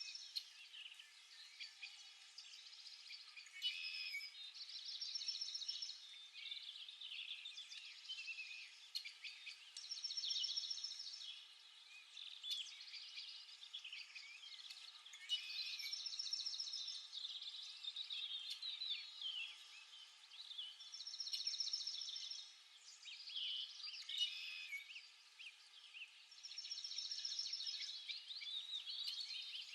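Songbirds chirping and calling. One bird repeats a rapid trilled song phrase of one to two seconds about every five seconds.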